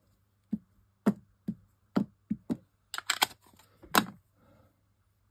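Silver ink pad dabbed repeatedly onto a face-up rubber script stamp on a clear acrylic block, re-inking it: about a dozen sharp, uneven taps, the loudest near the end.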